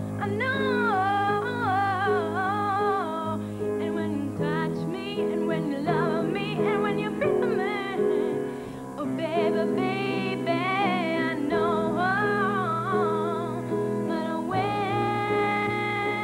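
A woman singing long, slow phrases with a wide vibrato over sustained instrumental accompaniment.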